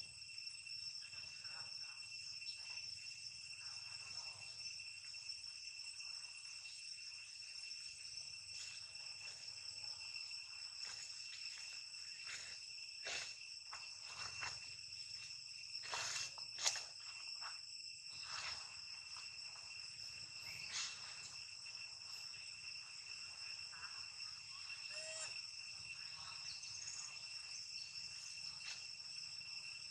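Steady, high-pitched insect chorus droning on several fixed pitches, with a few short clicks and knocks around the middle, the loudest a little past halfway.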